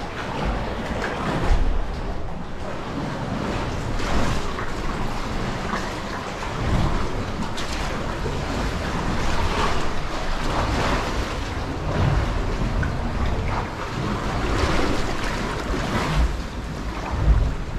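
Sea water sloshing and lapping around a kayak, with repeated paddle splashes every second or two. Gusts of wind buffet the microphone.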